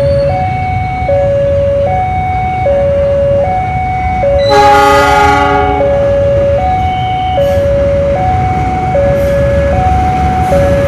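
Level-crossing warning alarm sounding a steady two-tone high-low chime over a low rumble, with a diesel locomotive's horn blowing once, for about a second, about four and a half seconds in as the train approaches.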